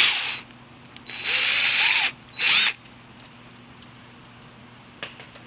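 Cordless drill-driver spinning a small nut off a wire on the generator end's terminal board. It makes three short runs: a brief one, a longer one of about a second with a slight rise in pitch, and a brief third.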